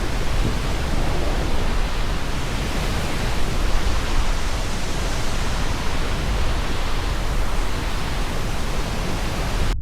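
Steady rushing of water falling at Multnomah Falls, a continuous even noise.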